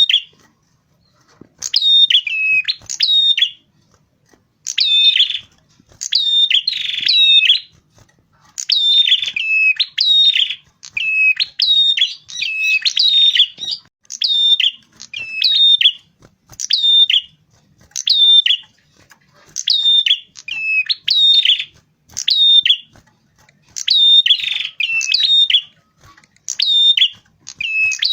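Prinia song: sharp, high chirping phrases of quick falling notes, repeated in clusters of two to four about every second, with brief gaps between. Played as a lure call to attract prinias.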